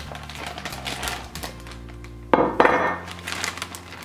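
Plastic zip-top bag rustling as raw beef strips are tipped into it from a glass dish, with two loud knocks about two and a half seconds in, most likely the glass dish set down on the wooden counter. Soft background music runs under it.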